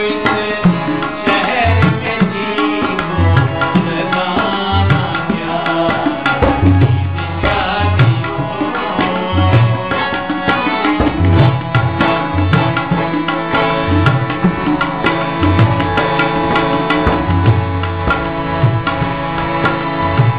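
Ghazal music with tabla playing a steady rhythm under sustained melodic accompaniment.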